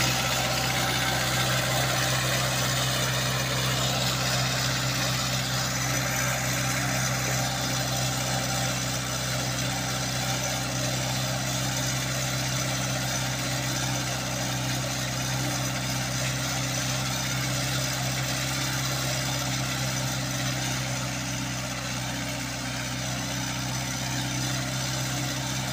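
Compact tractor engine running at a steady speed as it pulls a multi-tine inter-cultivator through the soil.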